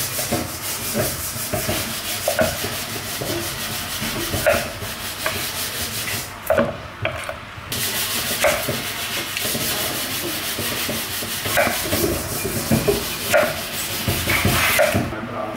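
Kitchen knife slicing through raw sweet potato and a firm white root vegetable on a wooden chopping board. There is a scraping, rubbing sound of the blade through the flesh, knocks of the blade on the board at irregular intervals, and a steady hiss underneath.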